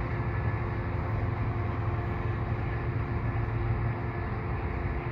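Steady low rumble of a commuter train pulling away, its EMD F59PHI diesel locomotive running under power, with a thin steady tone above it.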